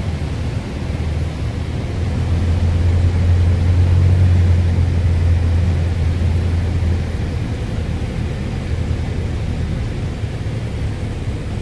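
Piper Warrior's four-cylinder Lycoming engine and propeller droning steadily on landing approach, heard inside the cabin with rushing airflow noise. The drone grows louder a couple of seconds in and eases off again after about seven seconds.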